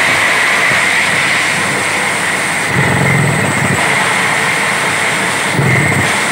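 Truck-mounted borewell drilling rig running hard while drilling, dust blowing up from the hole around the drill pipe: a loud, steady machine noise with a high whine. A lower rumble swells about three seconds in and again near the end.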